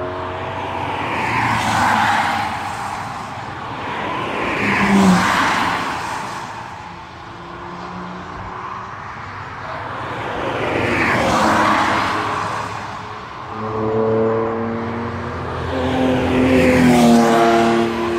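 Cars passing one after another at speed, each a swell of engine and tyre noise that rises and falls, about four pass-bys in all. Near the end a car's engine note grows clear and steady as it approaches.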